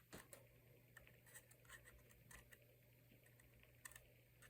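Faint scratching and small ticks of a metal pick scraping packed debris out of an iPhone 7 Plus charging port, over a low steady hum.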